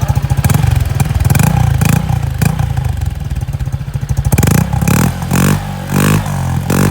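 Honda PCX150's single-cylinder engine revved through a JVT Power Pipe aftermarket exhaust, rising from idle in repeated throttle blips, which come quicker and more regular, about two a second, in the second half.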